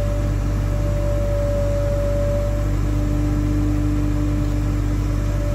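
A heavy engine running steadily at a constant speed with a low rumble. A whine rides over it and drops to about half its pitch a little under three seconds in.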